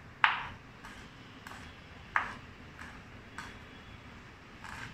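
Kitchen knife chopping red chillies on a wooden cutting board: separate sharp knocks of the blade on the board, irregular, roughly one or two a second.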